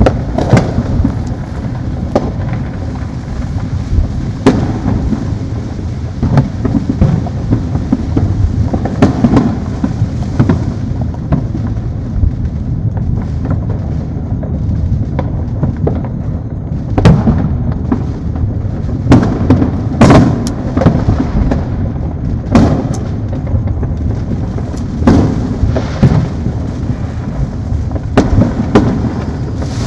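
Many fireworks going off at once: a continuous low rumble of distant booms, with frequent sharp bangs and pops on top. Several louder, closer blasts come in the second half.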